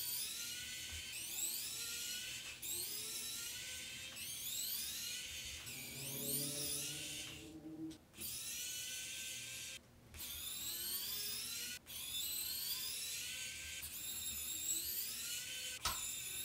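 Electric precision screwdriver's small motor whirring as it backs out small Torx screws, its whine gliding up in pitch again and again. It stops for a moment several times, between screws.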